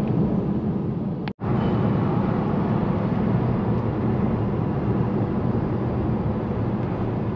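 Steady road and engine noise inside a car cruising on a two-lane road, a low even rumble. It cuts out for an instant about a second and a half in.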